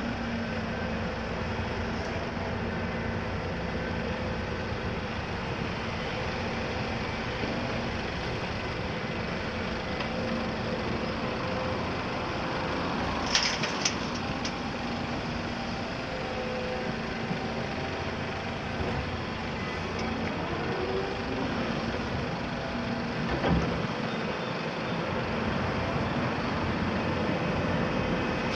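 Volvo EC300 excavator working, its diesel engine running steadily throughout, with a few sharp metallic clanks about halfway through and a single knock later on.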